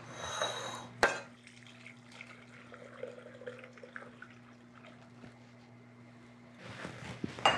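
Thick custard batter poured from a glass bowl through a fine-mesh metal sieve into a glass pitcher, with one sharp clink about a second in and more clinking near the end. A steady low hum runs underneath.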